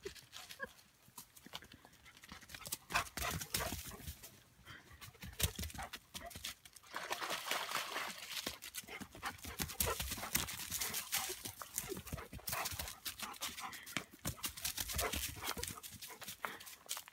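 Footsteps crunching and scuffing on dry leaf litter and a rocky trail, with a dog moving about close by; the crunching gets denser from about seven seconds in.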